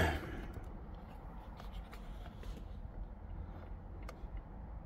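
Faint, scattered light clicks and handling sounds from working at the plastic airbag wiring connectors behind a steering wheel, over a low steady hum.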